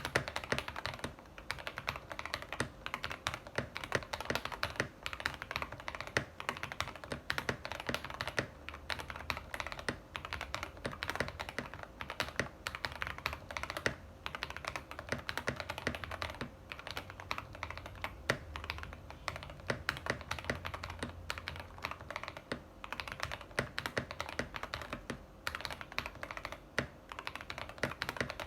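Fast, continuous typing on a custom 60% mechanical keyboard (Tofu60 case with brass weight and foam, polycarbonate plate, hot-swap PCB, lubed Gateron Black Ink V2 linear switches with switch films), a rapid stream of keystrokes with occasional louder ones.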